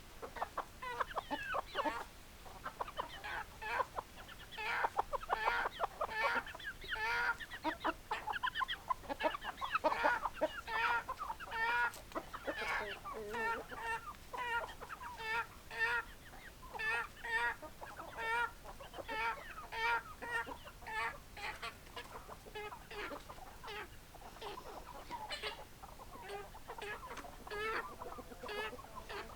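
Chickens clucking: many short calls from several hens overlapping densely, settling in the second half into an even run of short clucks, about two a second.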